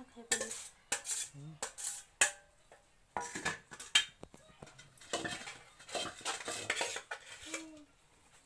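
Steel spoon clinking and scraping against stainless steel plates and bowls as food is scooped and dished out, in irregular sharp clinks with a busier run of scraping past the middle.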